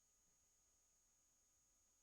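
Near silence: only faint steady electronic hiss with a thin high-pitched whine from the recording equipment.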